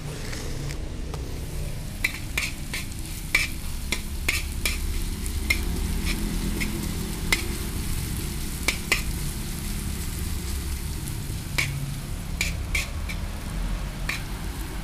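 A metal spoon stirring and scraping chopped onions frying in a large metal wok, with repeated sharp clinks of the spoon against the pan over a soft sizzle. A steady low rumble runs underneath.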